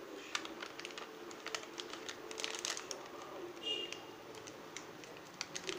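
Plastic wrapper of a Juzt Jelly gummy-bear packet crinkling and crackling as it is handled, a run of quick, scattered crackles.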